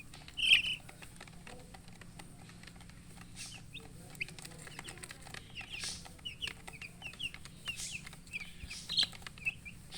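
A group of baby chicks peeping: many short, high chirps, with one loud chirp about half a second in, and scattered light clicks.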